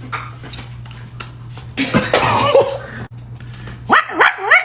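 A person's voice making a harsh, cough-like sound effect about two seconds in. This is followed near the end by high squealing cries that rise in pitch, over a steady low hum.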